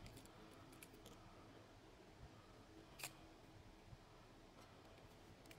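Near silence: room tone, with one faint click about three seconds in as small parts of a spinning reel are handled.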